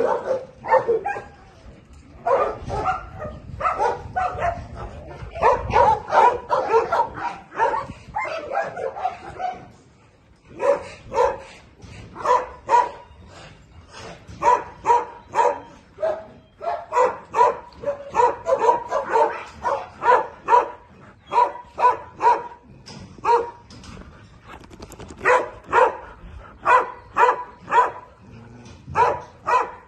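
Dogs barking over and over, short sharp barks in quick succession, with a brief lull about ten seconds in.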